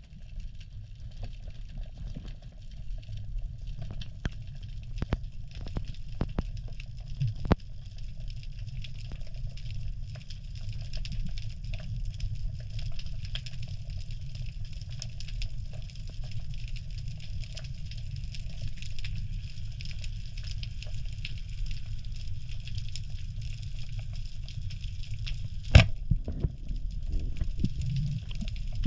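Underwater ambience picked up by the camera: a steady low rumble with faint crackling, and a few sharp clicks several seconds in. Near the end comes a single loud sharp crack, the speargun firing at a fish.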